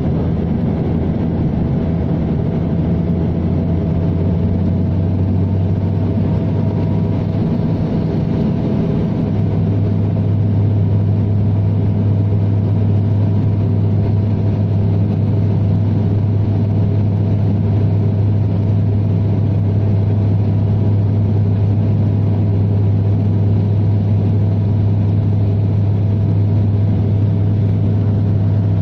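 Cabin noise of a twin-turboprop airliner on approach with its landing gear down: a steady low propeller drone over rushing airflow. The drone grows a little louder about nine seconds in.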